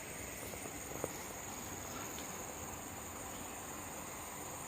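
Steady background insect chorus, an even high chirring, with a faint click about a second in.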